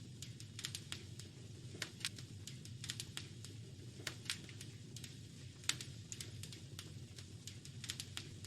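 Wood fire crackling in a fireplace: frequent irregular sharp pops and snaps, one louder snap near the middle, over a steady low rumble of the burning fire.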